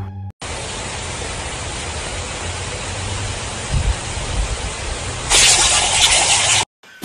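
Pop-up lawn sprinkler head spraying water in a steady hiss. About five seconds in, the hiss gets louder and brighter as a puppy's muzzle breaks up the jet, then it cuts off suddenly.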